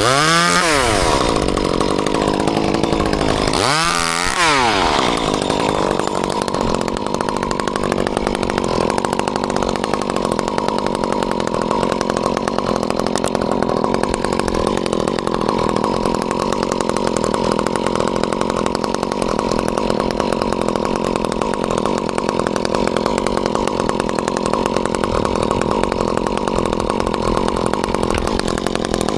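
Chainsaw revved up and down twice, then running steadily at high speed.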